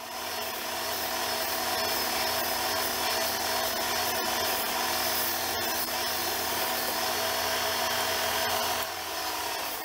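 Belt sander running while a rubber cleaning stick is pressed against the moving sanding belt, rubbing the packed dust out of a clogged belt. The steady noise eases off near the end.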